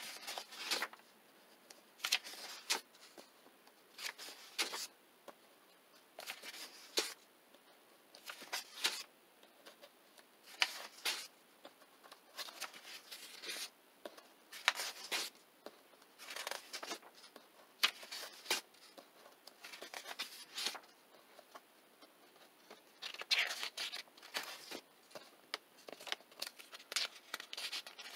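Paper pages of a softcover coloring book being turned one after another, each turn a short rustling swish, every couple of seconds, with softer brushing as a hand smooths each page flat.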